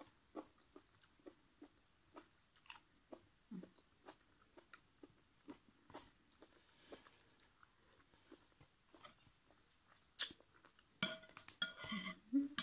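Quiet chewing and small wet mouth clicks of a person eating sticky rice and mushroom curry. Near the end, a spoon clinks and scrapes against the plate several times.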